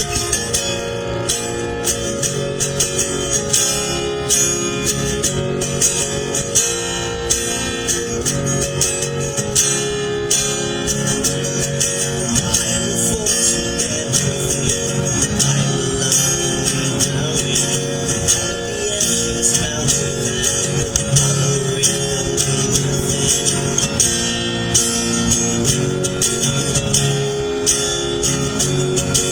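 Music: a continuous instrumental piece with several pitched parts over a busy, steady beat.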